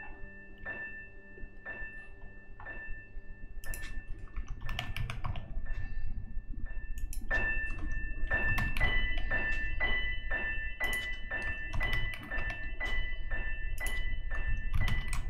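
Typing on a computer keyboard: quick irregular key clicks that start about four seconds in and grow busier and louder. Under them runs soft background music with sustained bell-like tones and a slow pulse about once a second.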